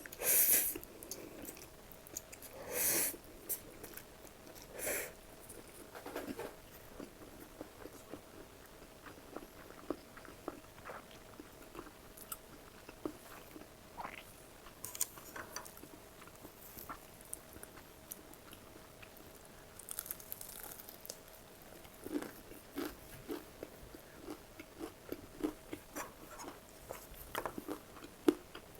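Close-miked eating: a few loud crunchy bites in the first five seconds, then quieter chewing with small wet mouth clicks that grow denser near the end.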